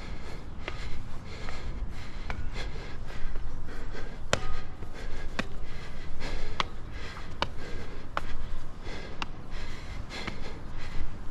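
Wind rumbling on the microphone high up on a steel rollercoaster track, with irregular sharp clicks and taps about once a second.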